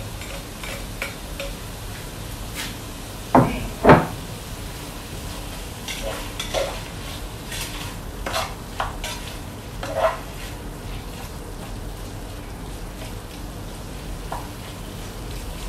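Pork pieces sizzling in a pot of soy sauce while a utensil stirs and scrapes them, with two loud knocks against the pot about three to four seconds in and scattered smaller clinks and scrapes later.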